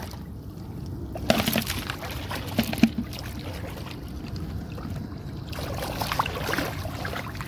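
Shallow seawater sloshing and splashing as people wade through it, with a few sharper splashes about a second and a half in and near three seconds.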